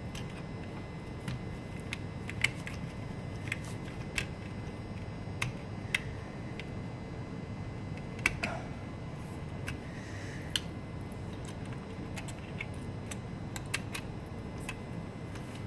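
Irregular light clicks and taps of small plastic and metal parts being handled as the solid state drive is slid out of a Dell Venue 11 Pro tablet's opened case, over a steady low hum.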